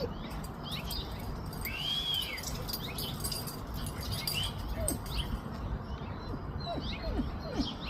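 Small songbirds scolding in alarm at a perched juvenile red-tailed hawk: many short, sharp, high chirps scattered through, with one longer arched call about two seconds in. A steady low rumble runs underneath.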